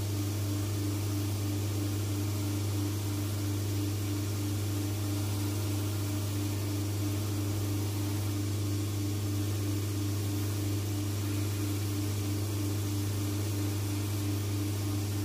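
Cobbler's shoe finishing machine running steadily, a constant motor hum with a slight throb about four times a second, while a leather sole is held against its spinning wheel.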